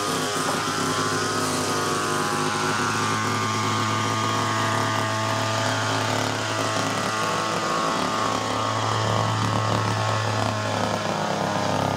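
A car's engine and road noise heard while driving: a steady low drone with an even hum and a hiss of tyre and wind noise.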